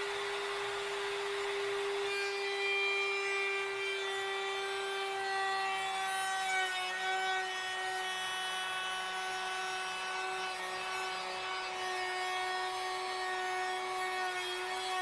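Handheld wood router running at a steady high whine, its straight bit cutting along the edge of a long board guided by a clamped aluminium straight edge, trimming the warped edge straight for a glue joint.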